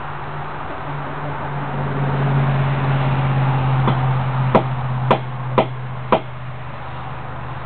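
Four sharp knocks about half a second apart, from pieces of litharge being tapped and broken up by hand while checking for leftover lead beads, over a steady low hum.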